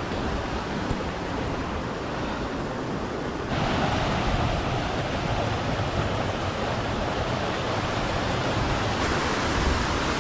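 Steady rush of fast-flowing water from a waterfall stream, stepping up abruptly louder about three and a half seconds in.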